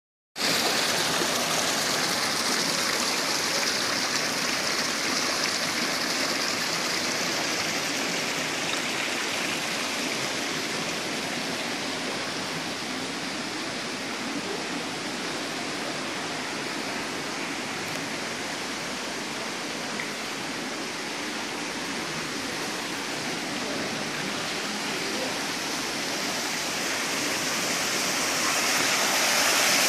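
Water pouring from a spout into a stone channel and rushing along it, a steady splashing rush. It softens somewhat in the middle and grows louder again near the end.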